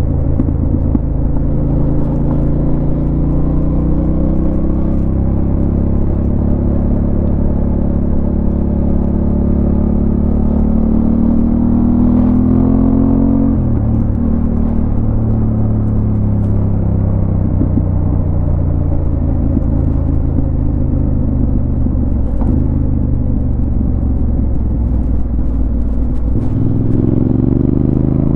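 Yamaha Ténéré 700's 689 cc parallel-twin engine running under way, its pitch climbing slowly and then dropping sharply, about half-way through, again about three-quarters of the way through, and once more near the end, before climbing again.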